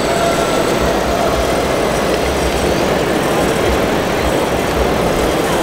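Radio-controlled scale construction models running: a steady mechanical whir and rumble with a faint whine.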